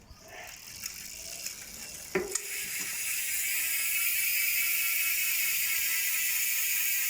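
Tanke 6-pawl, 72-click rear mountain-bike hub freewheeling. A few clicks come first, then from about two seconds in a fast, steady, high-pitched buzz of pawl clicks. The hub is new and still has grease inside, which the shop says keeps it quieter until it wears in.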